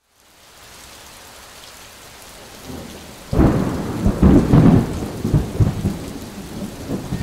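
Steady rain, then a little over three seconds in a sudden loud clap of thunder that rumbles on for a few seconds.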